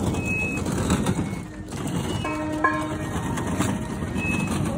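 Steady rumbling street noise, with a short horn-like tone about two and a half seconds in and a few brief high chirps.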